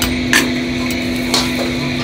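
Small restaurant kitchen noise: a steady mechanical hum with a constant low tone, and two short sharp knocks of kitchen utensils or dishes, about a third of a second in and near one and a half seconds in.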